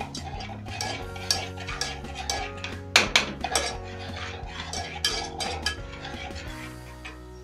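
Metal spoon stirring and scraping in a small metal pot, with irregular clinks against the pot's sides and the loudest clink about three seconds in, as sugar melts down into caramel.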